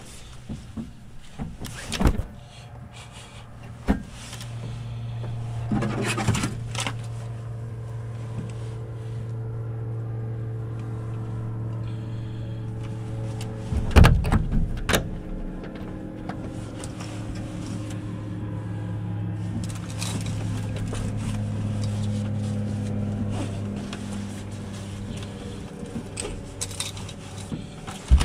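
A steady low engine hum sets in about four seconds in and runs on, its pitch dipping and rising slightly, with a few sharp knocks and rustles of handling in the cockpit, the loudest about halfway through.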